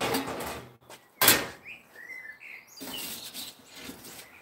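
Metal door of a small pellet-fired pizza oven being handled off with a scrape and one sharp clank about a second in, followed by a metal pizza peel scraping along the oven floor as the pizza is pulled out.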